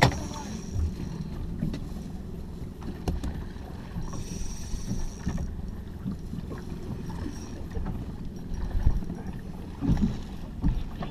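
Water slapping against the hull of a small motorboat, with wind, a few knocks, and a brief hiss about four seconds in.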